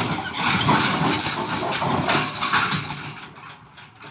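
Diesel engines of crawler pipelayers running under load, a rough, uneven mechanical noise that drops off about three seconds in.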